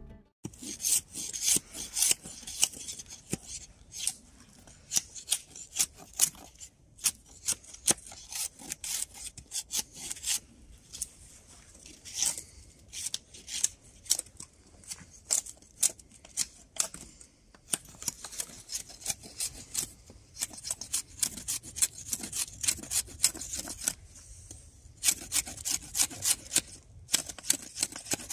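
A large machete-style blade being drawn along a freshly cut green branch, shaving off its bark in quick repeated scraping strokes. The strokes come several a second, in runs with short pauses between them.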